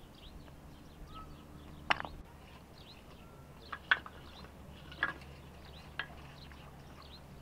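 Small birds chirping repeatedly, with four sharp, ringing clanks about a second apart as a metal basin is set down and handled on the ground.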